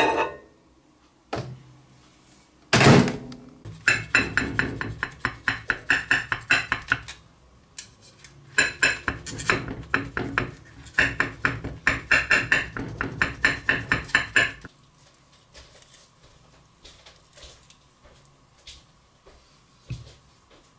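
Kitchen handling of dishes and utensils: a few sharp knocks and a thud, then long runs of fast clicking in several bursts. Only faint light taps follow.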